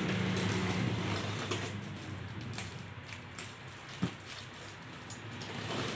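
Plastic wrapping and tape on a cardboard parcel crinkling and scraping as they are cut and pulled open by hand, with scattered small clicks and a sharper tap about four seconds in. A low steady hum fades away over the first two seconds.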